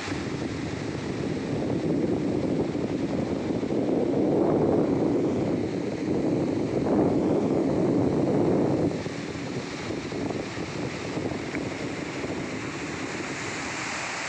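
Rushing whitewater of a fast, rocky mountain river: a steady roar of rapids that swells louder in the middle and drops back about nine seconds in.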